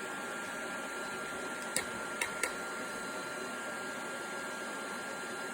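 Cheap stick welder running steadily as a constant-current supply under a load of about 70 amps: an even fan noise with a thin steady whine. Three light clicks come a little under two seconds in.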